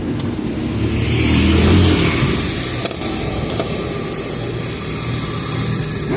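Honda Pop 110i's small single-cylinder four-stroke engine, fitted with a sport air filter, running and swelling louder for about a second soon after the start, then settling to a steady run.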